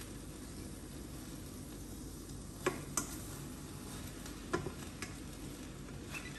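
Chicken and rice vermicelli stir-fry sizzling steadily in a pan as it is stirred, with four sharp knocks of the stirring utensil against the pan: a pair near the middle and another pair a little later.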